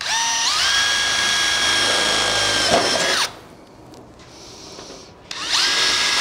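Cordless drill pre-drilling screw holes through thin sheet-metal roofing flashing: the motor whines up to speed and runs steadily for about three seconds, stops, then starts again for the next hole about five seconds in.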